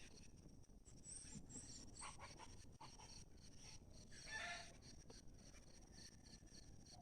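Faint rural morning ambience: steady high-pitched insect chirring, likely crickets, with a few high bird chirps between one and two seconds in and a short animal call about four seconds in.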